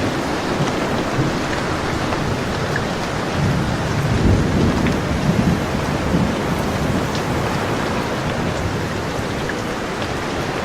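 Steady rain falling, with a low rumble of thunder that swells about four seconds in and dies back over the next couple of seconds.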